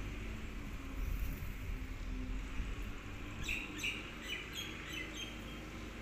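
Guineafowl giving a quick run of about seven short calls, a little past halfway, over a steady low background rumble.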